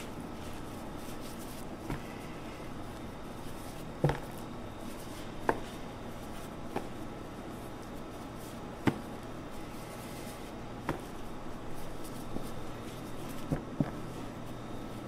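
Gloved hands tossing marinated karaage chicken pieces in flour in a stainless steel tray, with several sharp knocks as hands and pieces hit the metal pan and plastic tub, over a steady background hum.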